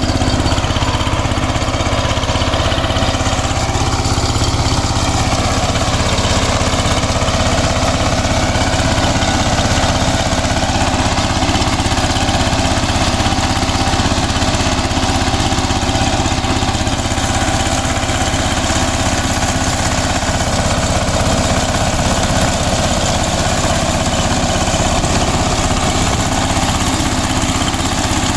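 Kirloskar Mega T 15 power tiller's single-cylinder diesel engine running steadily at an even, unchanging speed.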